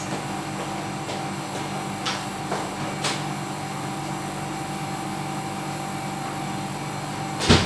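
Steady machine hum of a kitchen appliance or ventilation fan, with a few faint clicks and one sharp knock near the end.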